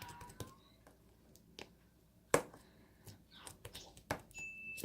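Hands working slime, making scattered wet clicks and pops, with one sharp loud pop about two seconds in.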